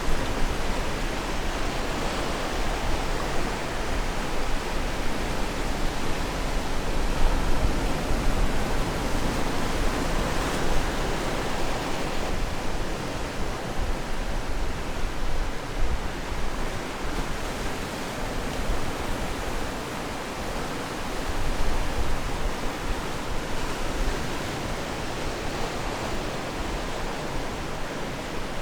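Ocean waves washing onto the shore: a steady rushing surf that swells and eases now and then.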